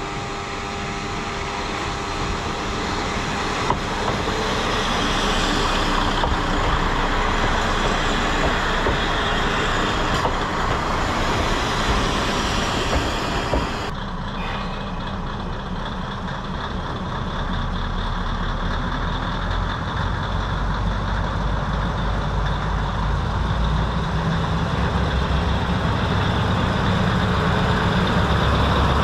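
Kominato Railway diesel railcar running along the line, heard on board: engine drone with wheel and track noise. The sound changes about halfway through, and then the low engine drone grows louder toward the end.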